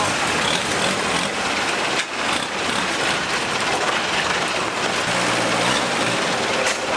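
Motorboat engine running steadily, a loud, even drone, with a brief low hum joining in about five seconds in.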